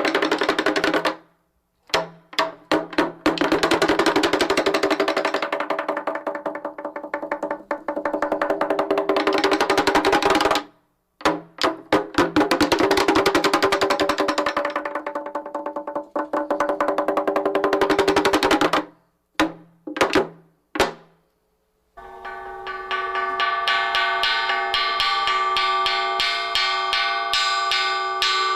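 Mogeo, the wooden fish of a Korean Buddhist temple, played by rattling two sticks inside its hollow body. It gives two long, fast rolls of hollow wooden knocks, then a few slowing single strokes. About 22 seconds in, the unpan, a bronze cloud-shaped gong, starts being struck rapidly and keeps ringing with several steady metallic tones.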